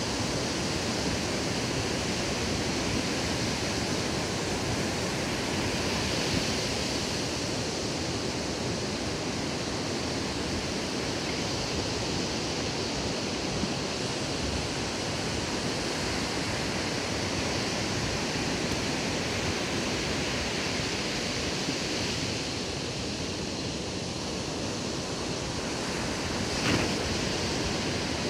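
Ocean surf breaking and washing up a sandy beach: a steady rushing noise that swells and eases with the waves. A single short, sharp click comes near the end.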